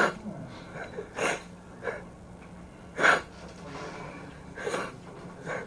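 A man crying, drawing about six short, sudden sobbing breaths, a second or so apart.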